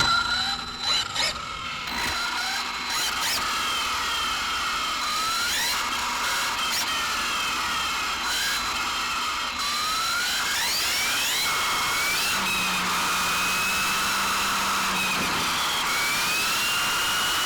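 Electric motor and drivetrain of a 6S LiPo RC car with a 25-tooth high-speed pinion, whining up in pitch several times as it accelerates on a full-speed run. It settles into a steadier high whine near the end, over a steady rushing noise.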